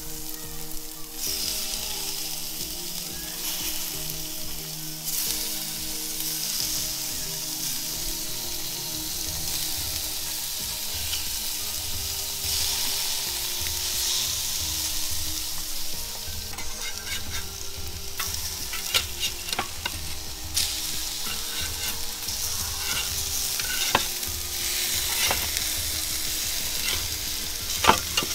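Seasoned fish fillets sizzling on an oiled, hot Weber grill, with a steady hiss. From about two-thirds of the way in, sharp clicks and knocks cut through it, the loudest just before the end.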